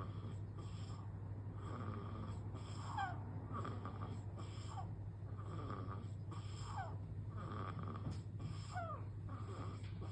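Newborn baby snoring softly in his sleep: noisy breaths about once a second, with a few short squeaks that fall in pitch, over a steady low hum.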